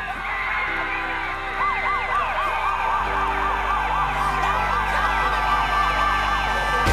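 Background music: held chords with a siren-like wail in the track that rises and falls about three times a second for a few seconds.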